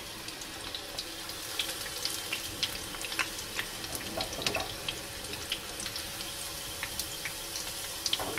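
Meat-stuffed egg halves coated in beaten egg frying in hot oil: a steady sizzle with many small crackles and pops scattered through it.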